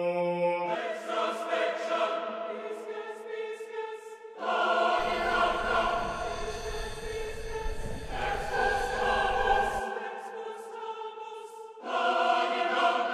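Background music: a choir-like ensemble singing long held chords that change every few seconds.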